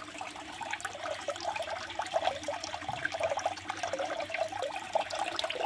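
Water from the pond's filter pump falling in thin streams into a small tub pond, trickling and splashing steadily with small plops and bubbling.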